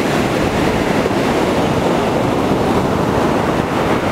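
Ocean waves breaking and washing up the shore in a steady rush, with wind buffeting the microphone.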